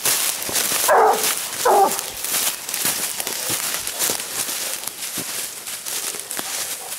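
Two short yelps from a leashed blue griffon scent hound, about a second in and again just under a second later, while it works a wild boar trail. Constant crunching and rustling of leaf litter and undergrowth from feet and paws moving quickly through the woods runs beneath.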